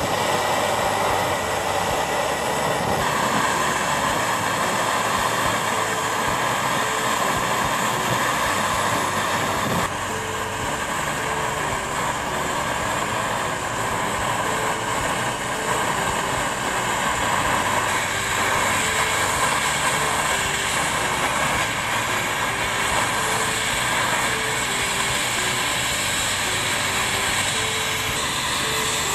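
Jeweller's melting torch running steadily into a clay crucible, a continuous hiss as it melts gold powder under borax flux.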